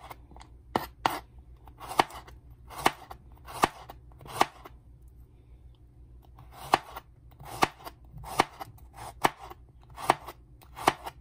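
Kitchen knife slicing a carrot into rounds on a wooden cutting board: a sharp knock of the blade on the board roughly once a second, with a pause of about two seconds midway.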